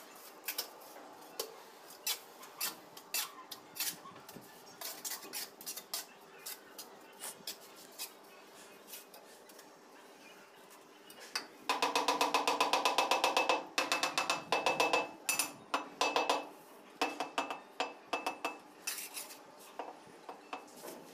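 Ceramic wall tiles being set: scattered sharp clinks of tile against tile and taps of a tool handle on the tiles, bedding them into the mortar. About twelve seconds in comes a quick run of rapid, even taps lasting a couple of seconds, the loudest part.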